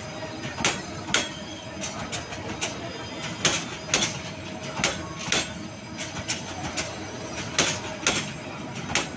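Wheels of slowly passing Bangladesh Railway intercity passenger coaches clacking over rail joints: repeated sharp knocks, often in pairs about half a second apart, over the steady rumble of the moving train.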